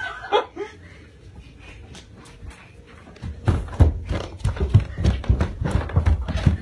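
Rapid, irregular thumps and knocks, several a second, starting about three seconds in after a fairly quiet stretch.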